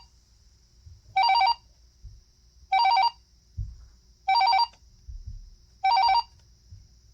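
AT&T SL82218 DECT 6.0 cordless phone sounding its paging tone: short warbling trills of two rapidly alternating tones, repeating about every one and a half seconds, four full trills after the tail of one at the very start.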